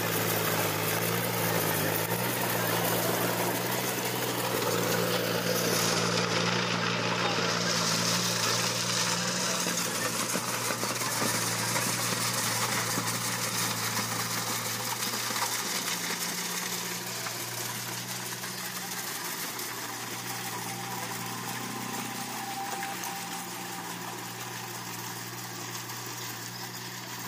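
John Deere tractor engine running steadily under load while pulling a rotavator through dry soil, fading gradually as the tractor moves away.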